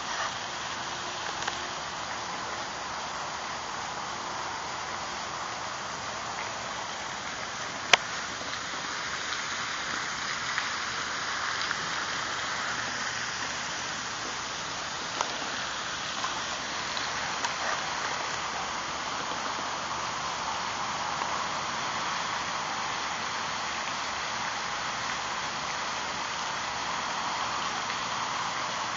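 Steady outdoor hiss with no clear pitch, with one sharp click about eight seconds in and a few faint ticks.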